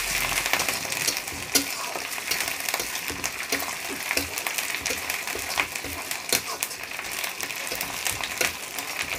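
Crushed ginger, green chilli and peanuts sizzling in hot mustard oil in a kadhai while a metal spatula stirs them, scraping and clicking against the pan many times. The mixture is being fried until browned.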